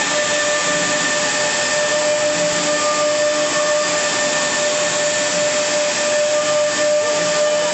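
K45MT CNC router cutting a board: the spindle gives a steady whine over the hiss of the bit working through the board.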